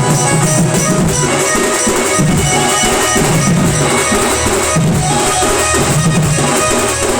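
Sambalpuri band party playing a tune instrumentally: steady, driving drums under a held melody line.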